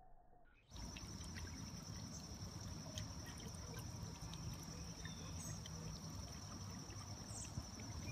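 Under a second in, muffled, slowed sound cuts to normal-speed backyard sound. This is a steady high-pitched trill over a low hum and a hiss.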